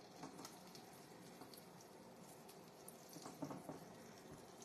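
Battered green tomato slices shallow-frying in hot oil in a skillet: a faint, steady crackle, with a few louder pops a little past three seconds in.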